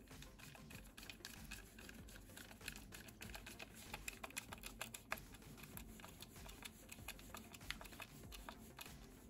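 Faint, irregular run of small clicks and taps, like small parts being handled, thickest through the middle with one sharper click about halfway.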